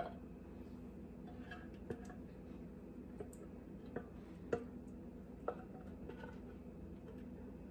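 A spatula scraping out a metal can of condensed cream of chicken soup, knocking against the can with a handful of short, light clicks spaced a second or so apart, over a faint steady hum.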